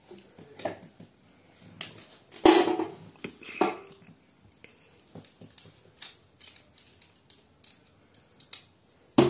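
Parts of a new fryer being handled and fitted together: scattered knocks, clinks and clicks. The loudest is a clatter about two and a half seconds in, followed by another a second later and a sharp click near the end.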